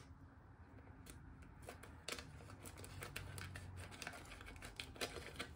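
Scissors snipping through clear transfer tape carrying adhesive vinyl lettering. The snips are faint, sharp and spaced irregularly, a handful of them through the stretch, over a low steady room hum.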